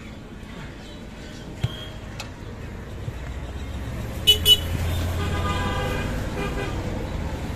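Two quick, sharp horn toots about four seconds in. Right after them a passing motor vehicle swells with a low rumble and a humming tone, then fades.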